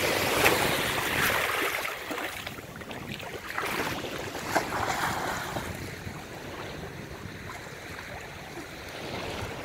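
Small sea waves washing in and out over a pebble shore, swelling and fading a few times, with wind on the microphone and water splashing as a person wades in and swims.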